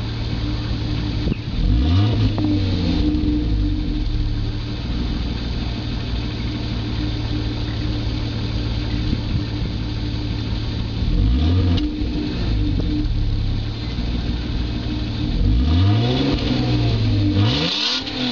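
BMW E34 525ix inline-six, through its stock original exhaust, idling steadily and revved four times in quick blips, the engine note rising and falling back to idle each time, with a longer rev near the end.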